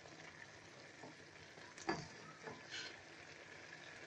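A spatula stirring and scraping boiled urad dal in a metal kadhai, with a few distinct scrapes about two seconds in. Under it is a faint steady sizzle of the dal cooking down nearly dry.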